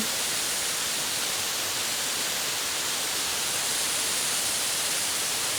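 Steady rushing of a waterfall, an even hiss that does not change.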